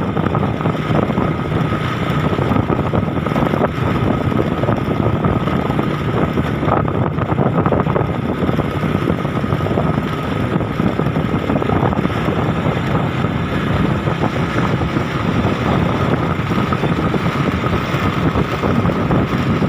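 Steady engine and road noise from a vehicle on the move, with wind buffeting the microphone.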